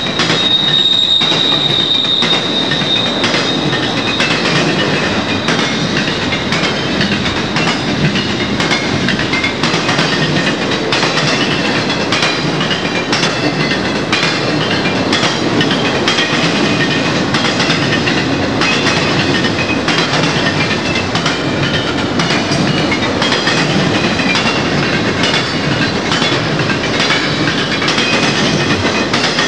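Conrail intermodal freight train rolling past: a steady rumble of wheels on rail with a quick run of wheel clicks throughout, and a high steady squeal in the first few seconds that fades away.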